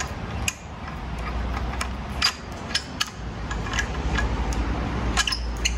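Scattered small metal clicks and taps as a vibraharp damper bar is seated in its receiver on the frame and tightened down by hand, over a steady low rumble.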